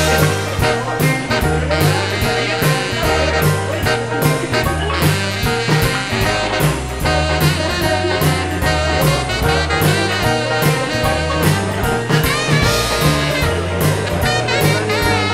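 Swing jazz music with brass and drums, a steady beat.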